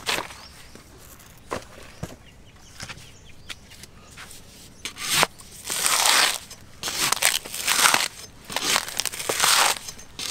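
Fibrous husks of young green coconuts tearing and crunching as they are forced onto an upright husking blade and pried apart. The first half is quieter, with a few light knocks; from about five seconds in come repeated loud tearing bursts.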